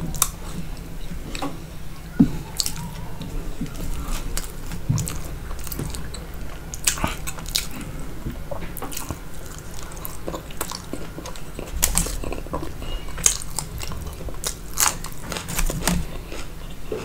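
Close-miked eating: a person chewing and biting Indian bread and curry, with irregular wet mouth clicks and the odd crunch. A low steady hum lies underneath.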